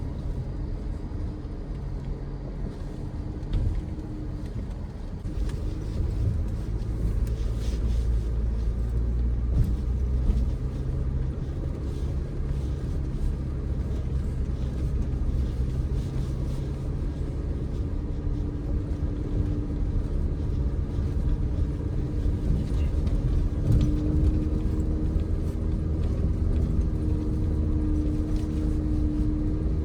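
Audi Q5 being driven: a steady low engine rumble with road noise, its engine note shifting slightly in pitch now and then.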